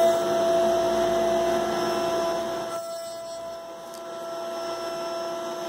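Electric motor running at a steady speed with a steady whine. It is loudest at first and eases off somewhat after about three seconds.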